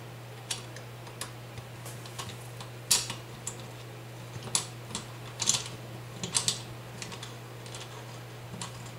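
Irregular light metallic clicks and taps of small bolts being handled and threaded in by hand on a shotgun quad-rail clamp, the loudest about three seconds in. A steady low hum runs underneath.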